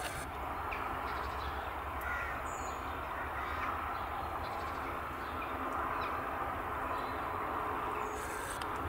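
Outdoor ambience: birds calling now and then in the background over a steady low rumble and hiss.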